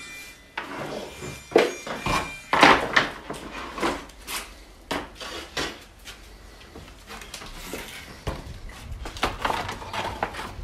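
Wooden floorboards knocking and clattering as they are pried up and handled, a run of uneven sharp knocks, the loudest between about one and a half and three seconds in and quieter ones after that.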